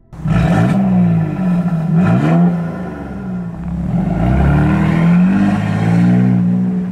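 Mercedes-Benz GL 400's twin-turbo V6, fitted with vacuum-valve exhaust cutouts, revving in several sharp blips through the aftermarket exhaust, then pulling away under throttle with a longer rise in revs.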